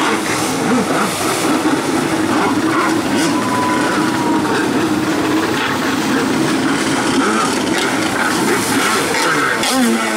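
Freestyle jet ski's engine running hard with its jet pump churning spray, the engine pitch swinging up and down near the end as the rider works the throttle through a trick.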